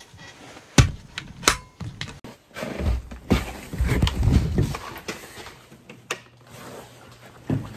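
Handling noise: two sharp knocks about a second in, then rustling and light bumps, with a couple of smaller clicks near the end.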